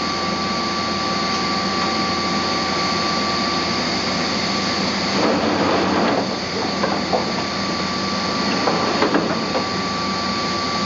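Automatic pallet system of a 5-axis machining cell moving a fixture pallet, over a steady machine hum with a thin high whine. Rougher clattering and a few sharp clunks come in from about five seconds in.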